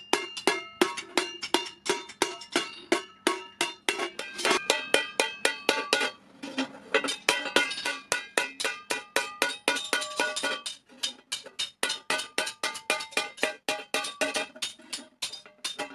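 Hand hammer beating a thin iron plate being forged into a thali, about four to five blows a second, the sheet ringing like a bell after each strike.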